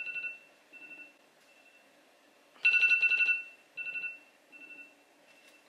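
Electronic ringing tone, a trill on two high notes. A short ring comes at the start and a loud one about two and a half seconds in, each followed by fainter, fading repeats.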